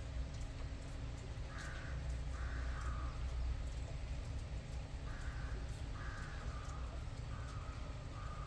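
A crow cawing: six harsh calls in three pairs, over a steady low background rumble.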